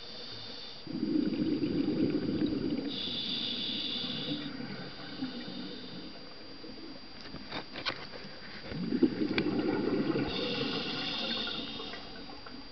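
Scuba diver breathing through a regulator underwater: a hissing inhalation followed by a rush of exhaled bubbles, twice. A few sharp clicks come between the two breaths.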